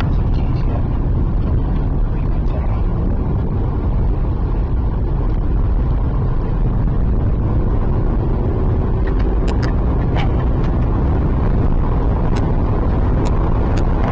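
Steady road and engine rumble of a car driving, heard from inside the cabin, with a few sharp ticks in the second half.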